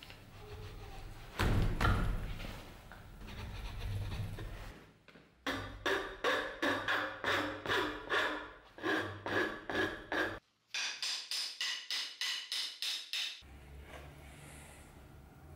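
A steel file stroked over a beech axe handle, about two to three strokes a second, then a brighter, faster run of about four strokes a second. Before that, a thump and handling noise as the axe head is pushed onto the handle.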